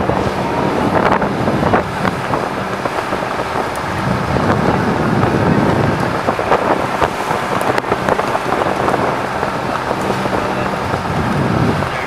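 Wind buffeting the microphone over a low, steady engine hum from a boat at sea.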